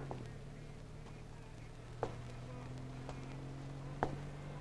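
Water dripping, single faint drops falling about two seconds apart over a steady low hum.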